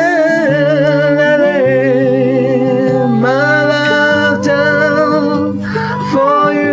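A wordless sung vocal line with vibrato, held and sliding between long notes, over sustained accompaniment chords; a breath is taken near the end.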